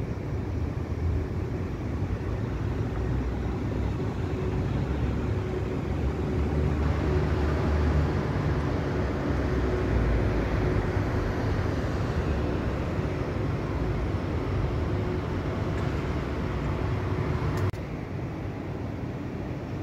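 Steady city traffic rumble heard from high up, with a faint steady hum. It swells for several seconds in the middle and drops abruptly near the end.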